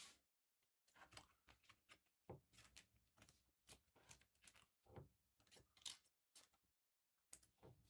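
Faint handling of trading cards and foil pack wrappers: an irregular string of short, soft rustles and scrapes as cards are slid and flipped.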